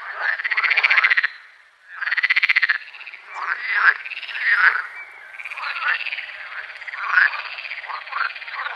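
Frogs croaking: two long, rapidly pulsed calls in the first few seconds, then several frogs calling over one another with shorter croaks that rise and fall in pitch.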